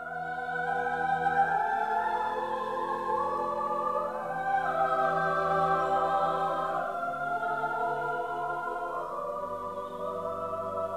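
Orchestral introduction to a 1950s operatic ballad: sustained, slowly shifting chords, rich in strings, swelling in from silence at the start.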